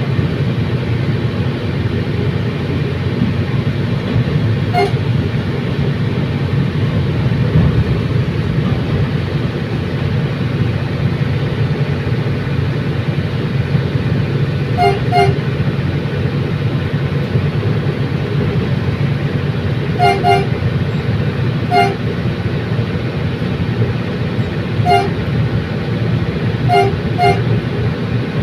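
Commuter train running with a steady low rumble, and short horn toots sounding about six times, single or in quick pairs, from about five seconds in.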